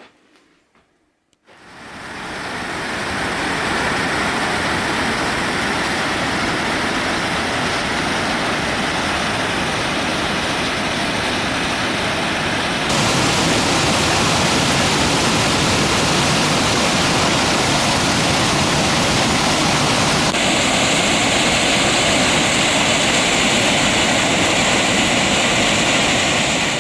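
Waterfall rushing: loud, steady falling-water noise that fades in about a second and a half in, changes abruptly in tone twice, and fades out at the end.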